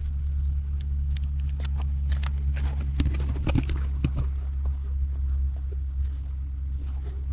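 A vehicle engine idling steadily with a low hum, with scattered crunching footsteps and clicks over it, busiest about three seconds in.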